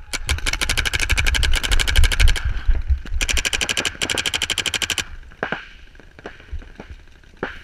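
Paintball marker firing rapid strings of shots: two long bursts of about two seconds each, then a few single shots near the end.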